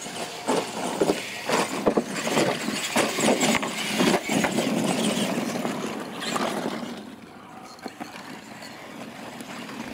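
Two radio-controlled monster trucks racing over a dirt obstacle course: their drivetrains and tyres running, with repeated clattering knocks as they hit the ramps and land the jumps. The noise dies down after about six or seven seconds.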